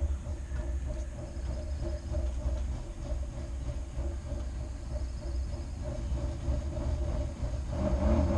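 Steady low rumble with a constant hum, growing louder near the end.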